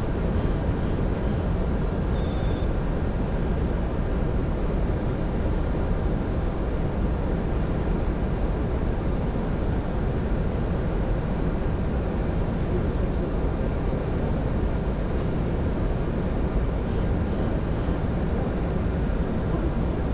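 Steady flight-deck noise of a Boeing 737-800 on approach, an even rushing of air and engines. About two seconds in, a brief high-pitched electronic beep sounds over it.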